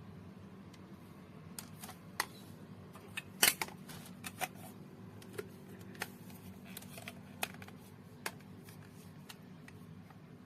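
A series of sharp clicks and taps at irregular intervals, loudest about three and a half seconds in, over a faint steady hum.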